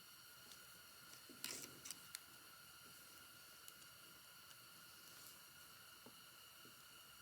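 Near silence with a steady faint high-pitched hum. About a second and a half in there is a brief cluster of small clicks and a scrape, as a screwdriver and a tiny screw are handled. A few faint ticks follow later.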